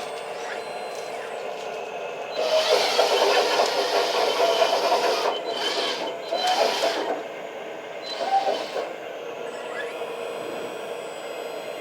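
Electric hydraulic pumps of a large-scale RC bulldozer humming steadily. From about two seconds in until about seven seconds they rise to a louder, harsher whine under load as a hydraulic function is worked, with one more short burst near the end.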